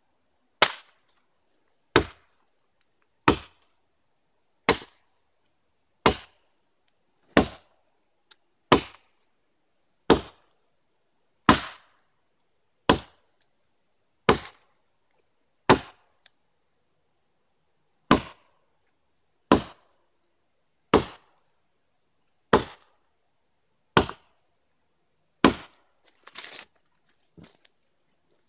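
Hatchet chopping into a log for firewood: about eighteen sharp, evenly spaced strokes, roughly one every second and a half, with a short pause about two-thirds through. Near the end come a flurry of smaller cracks and knocks.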